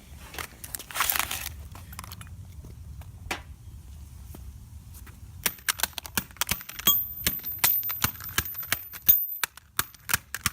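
An iPhone 6s Plus being struck over and over with a hard tool, giving sharp knocks and clicks. After a short scrape about a second in, the hits come fast and irregular over the second half.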